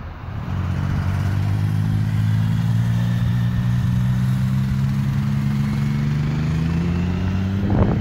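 A motor vehicle engine running loud and steady, its pitch slowly rising throughout as it speeds up.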